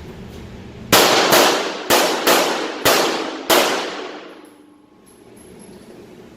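Six 9mm pistol shots from a Glock 34 fired in quick succession, about half a second apart, each ringing out and decaying after the report.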